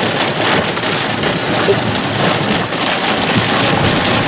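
Steady rain pelting a vehicle and its windshield, an even hiss with no letup.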